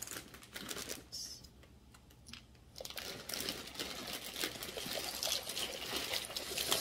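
Clear plastic bag of dry pasta crinkling as the hard pasta pieces rattle and tumble out of it into a pot of boiling water, a rapid patter of small clicks. It eases off about a second in and picks up again, denser, about three seconds in.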